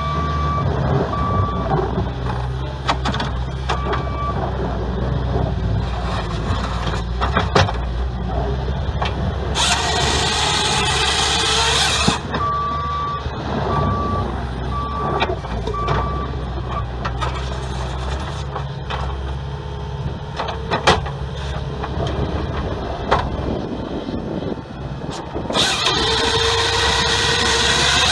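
A skid steer's engine runs steadily, and its backup alarm beeps in short runs at the start and again midway. Twice, at about ten seconds in and near the end, the grapple saw's bar cuts through a log with a loud burst of cutting noise for two to three seconds.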